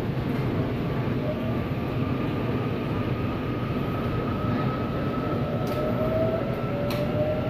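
Seoul Subway Line 8 train pulling out of a station, heard from inside the car: a steady rumble with the whine of the traction motors slowly rising in pitch as it gathers speed. Two light clicks sound near the end.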